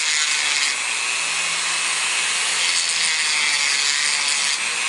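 A small power tool grinding steadily, carving into the glued joint of a repaired statue ear to make room for reinforcing epoxy putty.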